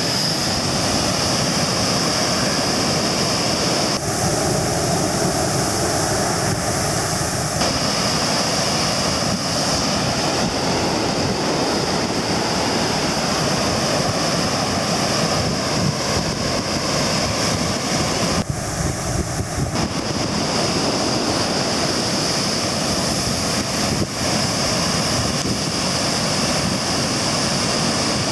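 Lagoon floodwater pouring through a breach in a sand dyke into the sea: a loud, steady rush of churning, turbulent water with breaking standing waves.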